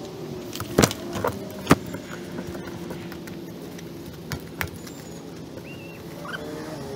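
Camping gear being handled and packed: a few sharp clicks and clinks of cook-kit items and pouch hardware, the loudest two just before and just after a second in, over a steady low hum.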